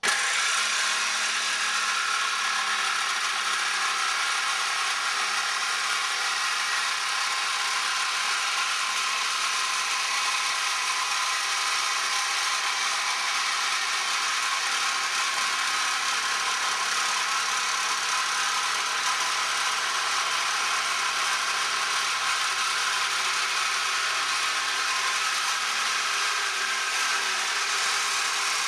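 Corded jigsaw with a metal-cutting blade sawing through thin sheet steel: a steady, harsh mechanical rattle and buzz that starts suddenly and holds an even level without a break.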